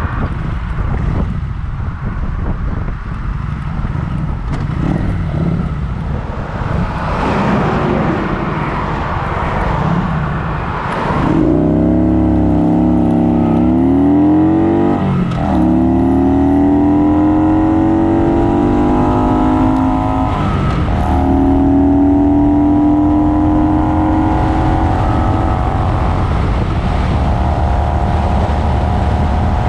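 Motorcycle riding at highway speed with a steady rush of wind and road noise while a semi-truck passes alongside. About eleven seconds in, the Kawasaki Vulcan 900's V-twin engine note comes up clearly. Its pitch climbs, drops twice as the bike shifts up, and rises again after each shift.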